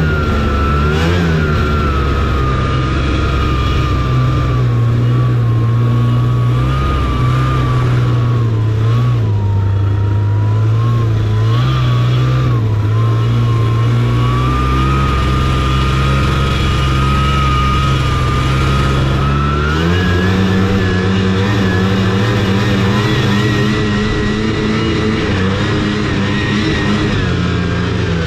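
Taiga Varyag 550 snowmobile's two-stroke engine running under way, its note wavering up and down with the throttle. About two-thirds of the way through it rises to a higher pitch and holds there.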